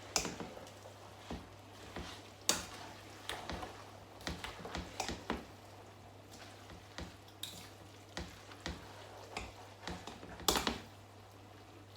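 Cooking sounds at the stove: a utensil knocking and clinking against a pot at irregular intervals, over a faint steady hum.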